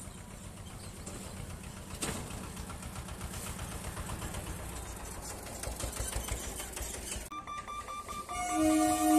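A small diesel three-wheeled goods carrier clatters past close by over the crossing. Near the end a loud, steady horn of several held tones sounds and swells: the horn of the approaching electric local train.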